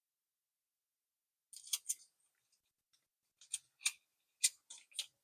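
Short crisp crackles and clicks of plastic card sleeves and trading cards being handled. They come in small clusters, starting about a second and a half in.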